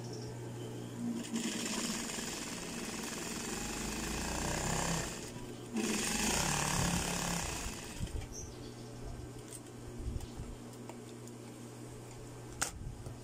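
Industrial sewing machine stitching stretch knit fabric in two runs with a short pause between, over the steady hum of its motor. Afterwards the motor hums on its own, and a sharp snip near the end is the thread being cut with scissors.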